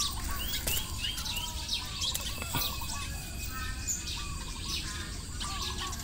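Birds chirping and twittering, many short overlapping calls, over a steady low background rumble.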